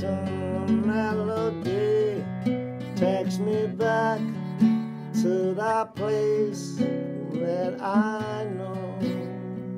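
A man singing over strummed acoustic guitar.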